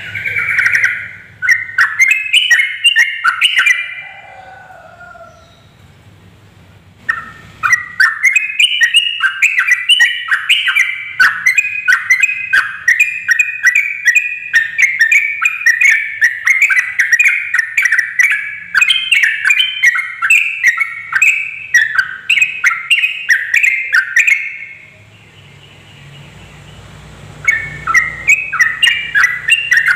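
Yellow-vented bulbul (trucuk) singing rapid, bubbly chattering phrases: a short burst, then after a pause a long unbroken run of about 17 seconds, and another burst near the end. This is the fast continuous 'ropel' song that keepers play to prompt other bulbuls to sing.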